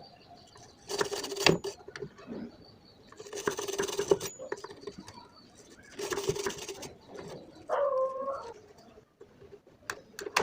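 Brush scrubbing over a circuit board while desoldering an IC's pins, in short scratchy strokes of about a second each, repeating every two to three seconds. A short cooing call, like a pigeon's, sounds near the end.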